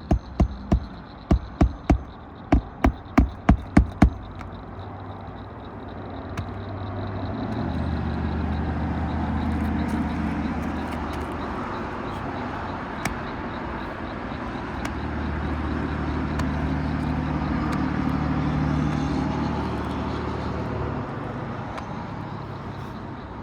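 A hammer drives roofing nails into asphalt shingles in a quick run of about a dozen strikes over the first four seconds. Then road traffic swells and fades as vehicles pass, for most of the rest.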